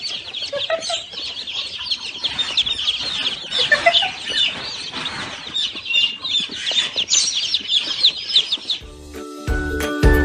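A flock of birds chirping continuously, many short high calls overlapping. Near the end the chirping stops and tinkling music with a beat begins.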